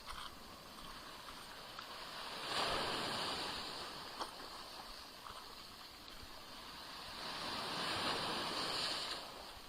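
Small Black Sea waves washing onto the shore, two waves about five seconds apart, each swelling to a hiss and fading.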